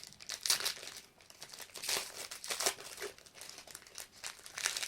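Wrapper of a 2013-14 Panini Titanium basketball card pack crinkling and tearing as it is opened by hand, in irregular crackly bursts.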